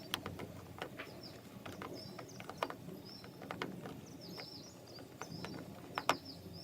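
Slime being stirred and kneaded in a bowl, giving irregular soft sticky clicks, with faint short high chirps now and then.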